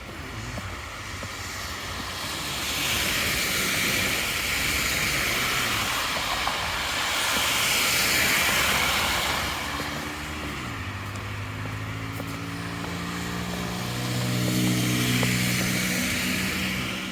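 Traffic passing on a snowy street: the hiss of tyres swells and fades as vehicles go by, about three times. From about ten seconds in, a vehicle's engine hum drops a little in pitch and then holds steady.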